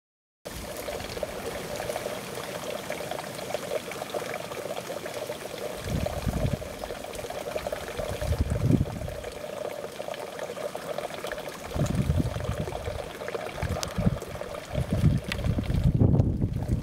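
Water trickling steadily into an animal trough, with low gusts of wind on the microphone now and then.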